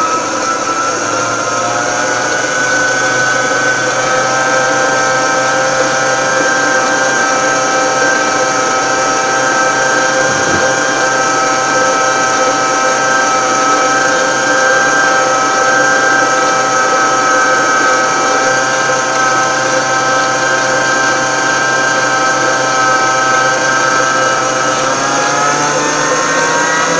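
Electric stand mixer running steadily, beating cake batter in a steel bowl: a loud, even motor whine that rises in pitch near the end.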